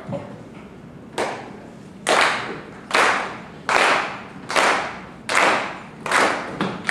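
A live audience clapping together in a steady beat, about one clap every 0.8 seconds, starting about a second in.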